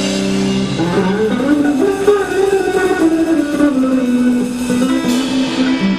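Live blues band playing an instrumental passage, a guitar lead with bent notes that slide up and back down over the band.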